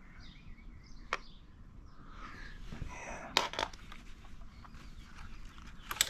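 Light scraping and a few sharp clicks of a small tool spreading and flattening JB Weld epoxy over the damaged countershaft seal surface of a dirt bike engine case.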